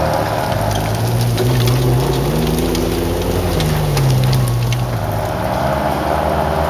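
Jeep engine revving hard under load on a steep dirt hill climb. The pitch rises and falls a few times and eases off about five seconds in, over a noisy rush with scattered sharp ticks.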